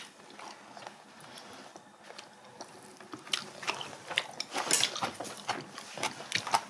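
Eating sounds from two people eating braised cod: chewing and mouth smacks, with short sharp clicks of metal chopsticks on dishes. It is fairly quiet for the first couple of seconds, then the clicks and smacks come thick and fast.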